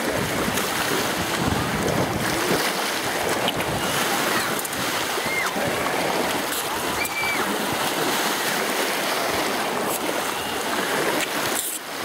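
Shallow-water beach ambience: a steady wash of small waves and splashing from people wading, with wind on the microphone.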